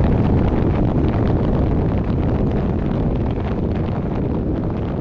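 Wind rushing over the microphone of a bike-mounted camera as a mountain bike rolls at speed down a paved road, a steady low noise that eases slightly toward the end.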